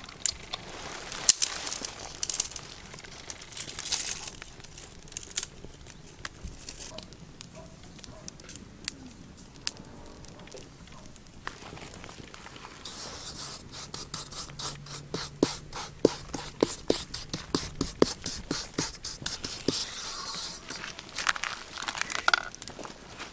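Knocks and scrapes of food preparation: a few scattered sharp knocks, then from just past halfway a run of quick, even taps lasting about seven seconds.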